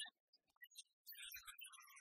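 Music cuts off abruptly, leaving near silence with a few faint ticks. Faint, indistinct sound returns about halfway through.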